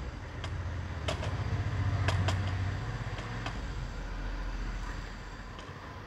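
A low rumble that swells and then fades over the first few seconds, with a few light clicks as stripped copper wires are twisted together by hand.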